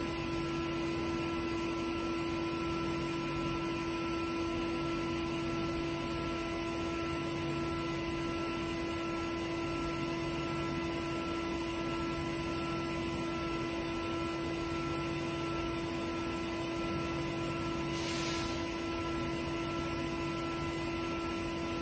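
Spindle of a small vertical CNC milling machine running steadily: a steady hum with a few high, even tones above it. A short soft hiss about 18 seconds in.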